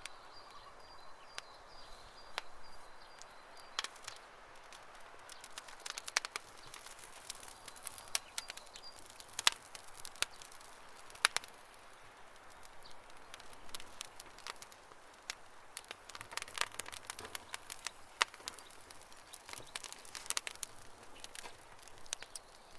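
Wood campfire crackling: irregular sharp pops and snaps over a soft steady hiss of burning.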